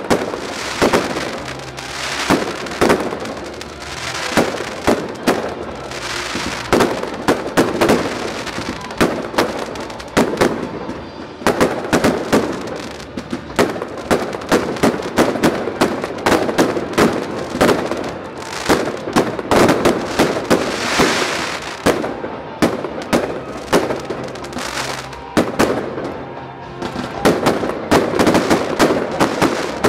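Fireworks display: aerial shells bursting overhead in a rapid, continuous series of bangs and crackles.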